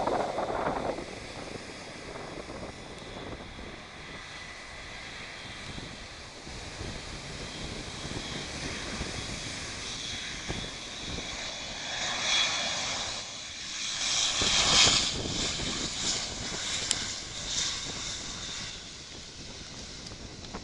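Airbus A400M's four turboprop engines during its landing: a steady high whine over propeller noise that grows to its loudest about two-thirds of the way through, then eases off. Wind buffets the microphone at the start.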